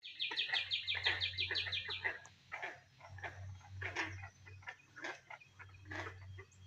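Chorus of unidentified animal calls, which the listeners take to be frogs. A rapid run of high chirps, about six a second, fills the first two seconds, then short scattered calls follow irregularly.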